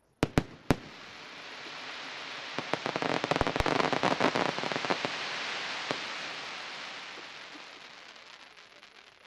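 Fireworks: three sharp bangs of shells bursting in quick succession, then a long crackling hiss from a gold spark shell that swells to a peak about four seconds in and slowly fades away.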